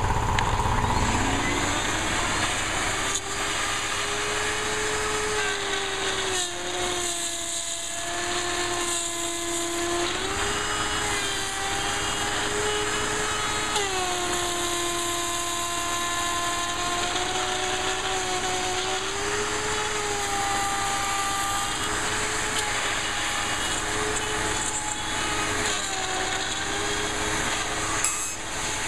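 Hand-held variable-speed trim router with a 1/4-inch bit running continuously as it cuts along a template through an LED panel, a steady whine that dips and rises in pitch as the bit loads and frees. A vacuum hose held at the bit draws off the cutting debris.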